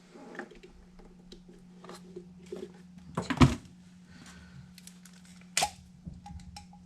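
A loud, sharp knock about three and a half seconds in and a shorter click near the end, with scattered small ticks, over a steady low hum.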